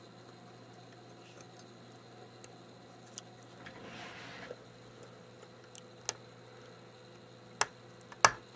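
Scattered small plastic clicks and a soft rustle of handling as a replacement foot mount and rubber foot are pressed into the plastic base of a Fitbit Aria bathroom scale, with the sharpest click near the end.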